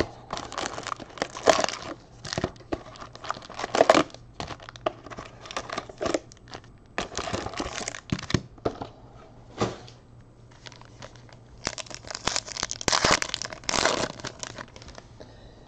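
Foil trading-card pack wrappers crinkling and tearing as packs are handled and ripped open, in irregular bursts with a quieter lull midway.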